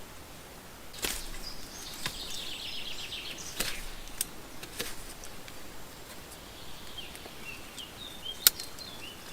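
Swiss Army knife blade carving a hazel branch: scraping shaving strokes and a scattering of sharp clicks of the blade on the wood, the loudest click near the end. Faint bird chirps near the end.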